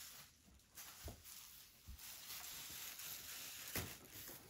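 Soft footsteps on tatami matting: a few faint, dull thuds, with light shuffling and rustling in between.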